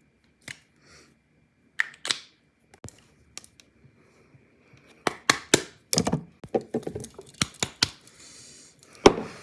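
Skincare bottles and jars being handled: a string of sharp clicks and knocks, thickening into a quick flurry about halfway through, with a short hiss near the end.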